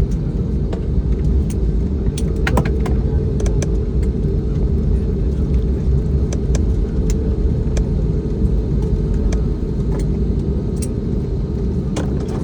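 Airliner cabin noise: a steady low rumble of engines and airframe with an even hum, and scattered light rattles and clicks from the cabin.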